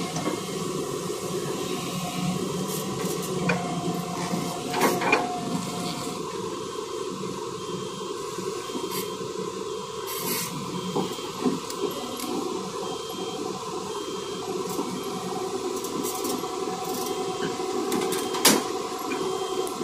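Hyundai Robex 215 tracked excavator's diesel engine running steadily as it works, with a few sharp knocks along the way.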